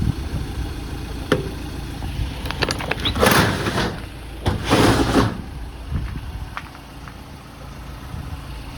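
Latch clicks and then two loud rushing sounds, about a second apart, as the doors of a van's side-mounted tool pod are opened. Underneath, the Ford Transit's diesel engine idles steadily.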